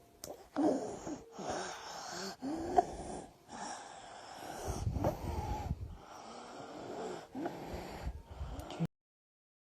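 A young child with croup breathing noisily in a run of breaths, each with a harsh, wheezy stridor. The stridor is a sign of swelling of the voice box and windpipe. The sound cuts off suddenly near the end.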